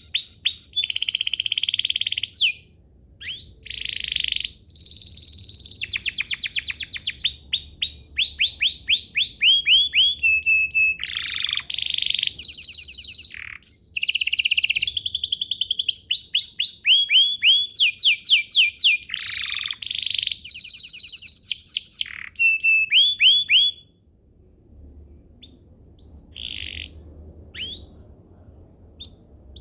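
Domestic canary singing a long, loud song of fast trills, rapid rows of repeated notes and gliding whistles, with only brief breaks. About 24 seconds in the song stops, and only a few faint scattered notes follow.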